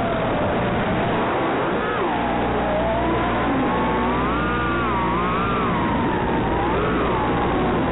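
A 3-inch toothpick quadcopter's four brushless motors (1404, 4000kV) whining in flight. The pitch rises and falls with throttle, climbing highest around the middle and dipping in between, over a steady hiss.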